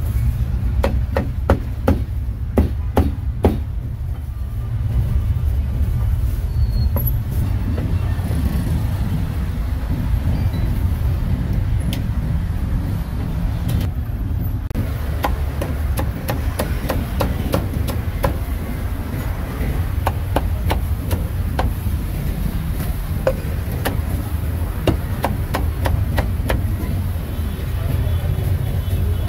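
Cleaver chopping grilled meat on a chopping block: quick, irregular strikes in runs, thinner through the middle and dense again in the second half, over a steady low rumble of road traffic.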